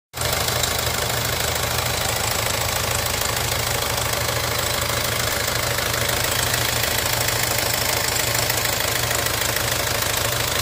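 Hyundai ix45 diesel engine idling with a steady metallic rattle and slap from a slack timing chain. The chain's hydraulic tensioner has lost pressure, so the chain goes loose and tight by turns.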